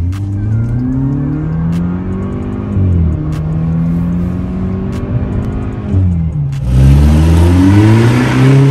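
Mercedes-Benz E-Class with a tuned exhaust and vacuum exhaust valve, accelerating. Heard from inside the cabin, the engine note climbs and drops back twice as it shifts up. Past the middle it is heard from outside, louder and raspier, as the car pulls away.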